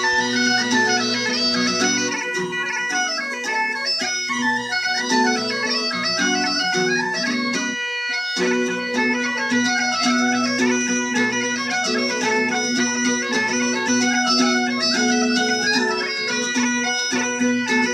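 Bagpipe music: a steady drone under a quick, stepping melody, with a short break about eight seconds in.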